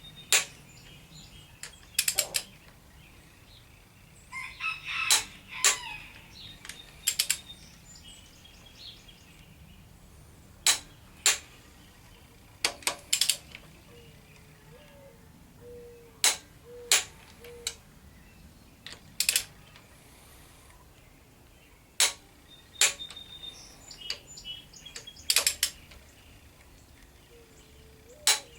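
Click-type torque wrench clicking as cylinder head bolts on a 383 stroker small-block Chevy are tightened to 65 ft-lb: sharp clicks every few seconds, often in pairs. Brief chirping about five seconds in.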